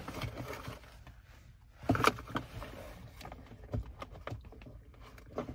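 Inside a car cabin: faint rustling and small knocks of someone moving in the seat, with a louder knock about two seconds in, over a low steady rumble.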